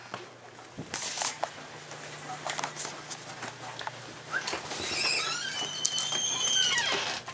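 Dog whining in high, drawn-out glides that rise and fall, starting about halfway through, after a stretch of scattered clicks and rustles.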